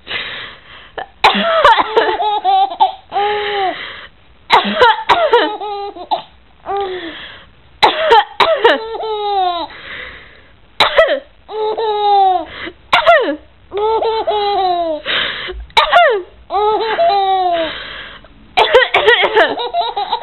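A baby laughing in repeated bursts in response to someone coughing, with coughs and giggles taking turns about every one to two seconds.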